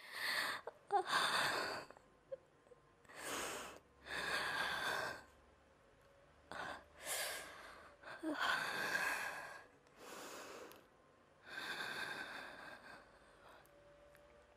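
A sick woman breathing hard and raggedly: about eight heavy, gasping breaths with short pauses between them, the laboured breathing of someone in pain.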